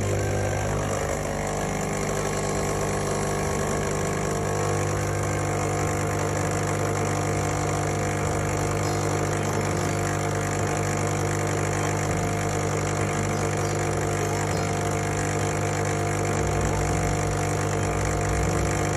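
Rancilio Silvia Pro X espresso machine's vibratory pump running steadily while pulling a shot: an even, loud mechanical hum.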